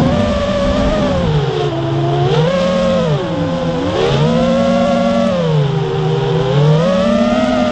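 Motors and propellers of a 3-inch FPV quadcopter whining, the pitch rising and falling again and again with the throttle, with a deep dip about three and a half seconds in.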